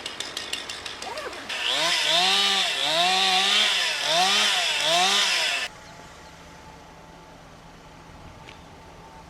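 Rapid rattling hammering, then a small engine revving up and down about four times with a harsh hiss over it, cutting off abruptly and leaving a faint steady hum.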